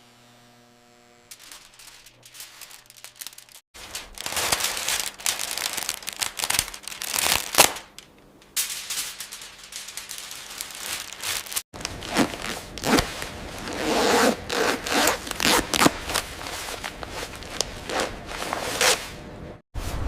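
Irregular scraping, crackling rustle in several sections that start and stop abruptly, about four, twelve and twenty seconds in, after a faint steady hum at the very start.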